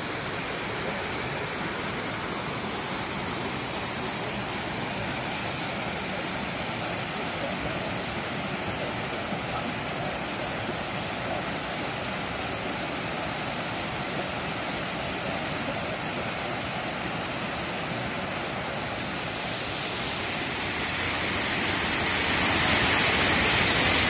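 Khe Van waterfall: water cascading over rocks into a pool, a steady rushing hiss that grows louder near the end.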